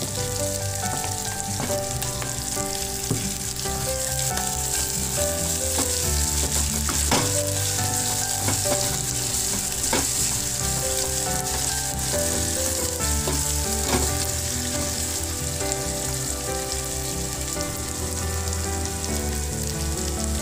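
Sliced onions, curry leaves and chillies sizzling in hot oil in an aluminium pot, frying the tempering for dal fry. A wooden spoon stirs them, with a few knocks against the pot about seven and ten seconds in.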